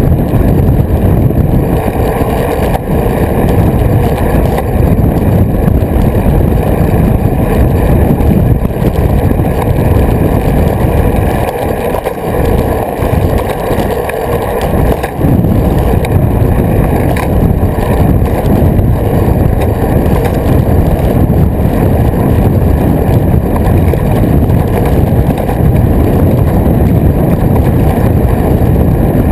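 Steady low rumble of wind buffeting the microphone of an action camera mounted on a moving road bike, mixed with tyre noise on asphalt. It eases briefly about halfway through, then returns.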